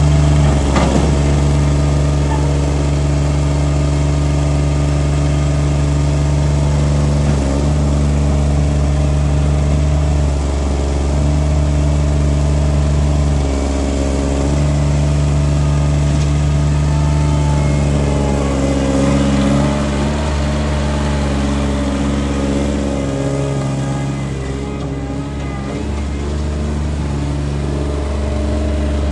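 Thomas T80 skid steer's Kubota diesel engine running steadily, its note dipping briefly a few times and wavering in pitch later on, with a short drop in loudness near the end.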